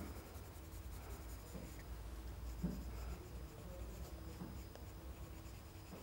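Green colored pencil scratching faintly on sketchbook paper as grass is sketched in.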